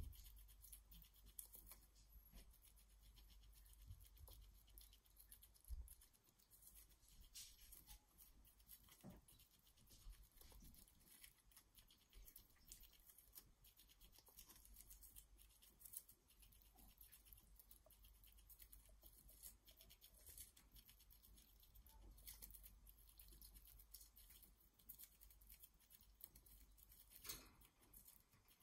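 Faint, crisp nibbling of a Eurasian red squirrel chewing a lettuce leaf: many small, sharp clicks and crunches over a low hum.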